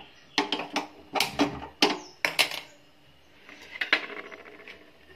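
Metal kitchenware clinking and knocking at the stove around a steel kadai and an oil bottle: about six sharp knocks in the first two and a half seconds, then a softer clatter about a second later.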